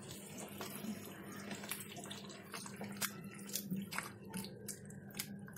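Spatula stirring chicken pieces through yogurt and spices in a nonstick kadai: soft wet stirring sounds with scattered light clicks and scrapes of the spatula against the pan, over a faint steady hum.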